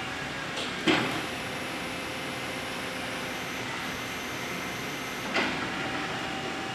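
Raymond swing-reach truck's electric drive and hydraulics running with a steady hum while the fork carriage swings round, with two sharp clunks, about a second in and again after about five seconds.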